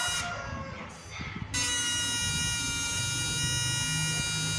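Homemade IRF3205 MOSFET inverter and step-up transformer of a fish shocker buzzing with a steady high-pitched whine made of many even tones while driving a lit lamp. The buzz drops away just after the start and comes back about a second and a half in.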